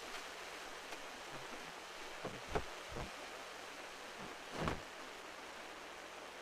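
Steady wash of sea surf breaking on the shore, with three short dull thumps around the middle.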